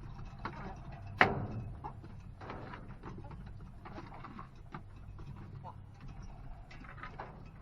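Laying hens (buff Orpingtons and barred rocks) at their feed, with scattered small pecking clicks and soft clucks. A single sharp knock about a second in stands out as the loudest sound.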